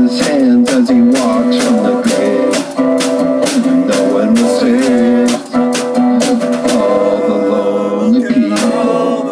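Live acoustic guitar strummed in a steady rhythm with a snare drum struck with sticks, and a man's voice singing over them.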